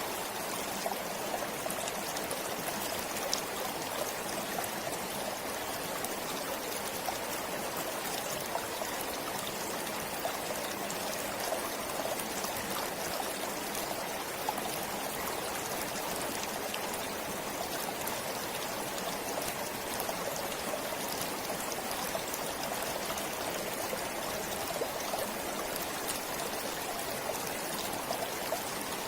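Stream water flowing steadily, a constant rushing trickle with small splashes scattered through it.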